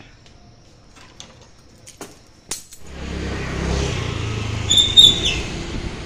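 A few sharp clicks and knocks in a quiet room. About three seconds in, the street traffic of motorbikes and auto-rickshaws takes over with a steady rumble, and a short high-pitched beep sounds about two seconds later.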